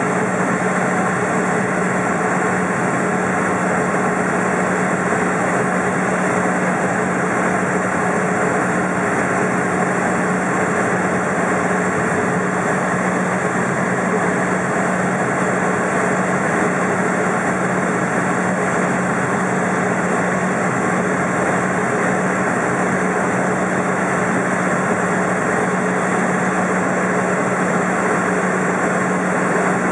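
A Cessna's engine and propeller running steadily as the plane taxis, heard from inside the cabin as an even drone with a constant low hum.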